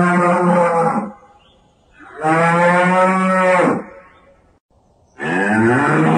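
Banteng lowing: long, deep, moo-like calls. One is already going at the start and ends about a second in, a second runs from about two to four seconds, and a third begins near the end.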